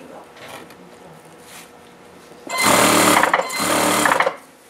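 Industrial sewing machine running in two short bursts of stitching, starting about halfway through, with a brief pause between them.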